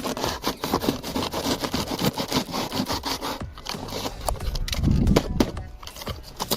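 Irregular scraping, rubbing and clicking of hard objects being handled, with a louder low thump about five seconds in.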